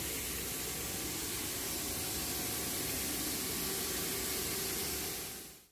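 Steady, even hiss of shop background noise, with a faint low hum under it. It fades out quickly near the end.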